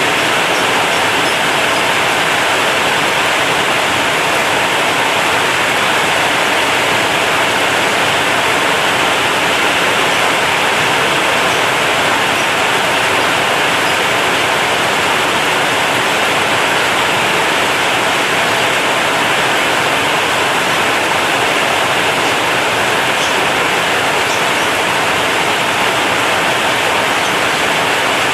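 Heavy rain falling on a corrugated zinc roof, a loud, steady, unbroken hiss of drumming drops.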